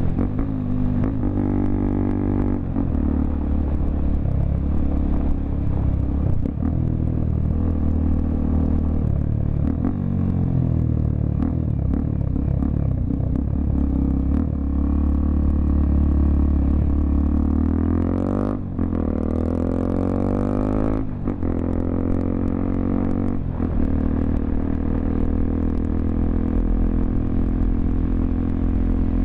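Honda XRE 300's single-cylinder engine running through a Roncar 2 Way aftermarket exhaust while the bike is ridden. The engine note rises and falls with the throttle, with a couple of brief dips about two-thirds of the way in.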